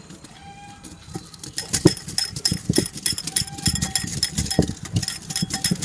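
Wire balloon whisk beating a thin mix of instant coffee, sugar and hot water in a glass bowl, its wires clinking rapidly and unevenly against the glass. The clinking starts about a second and a half in.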